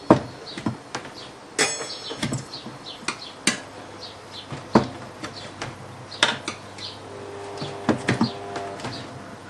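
Metal tyre levers clinking and knocking against a motorcycle wheel rim as a stiff tyre's bead is worked onto it: a dozen or so separate sharp clicks and knocks, irregularly spaced.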